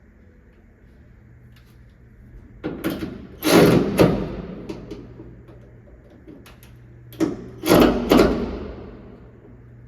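Two groups of heavy slams, three or four hits each, every hit ringing out for a second or so, over a low steady hum.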